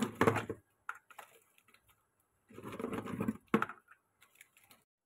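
Raw crab pieces, hard shells and claws, clattering against one another and a plastic bowl as they are handled. The rattling comes in two bursts, one at the very start and one a little after two and a half seconds, with a sharp knock at its end.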